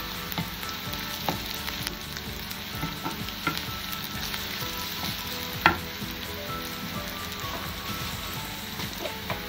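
Sliced onions and garlic sizzling in hot oil in a nonstick frying pan, stirred with a wooden spoon that clicks and knocks against the pan now and then. The loudest knock comes a little past halfway.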